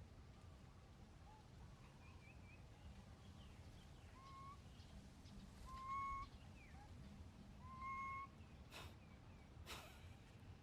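A baby monkey's faint, short whistle-like cooing calls, three clearer ones about two seconds apart among softer chirps. Two brief noises come near the end.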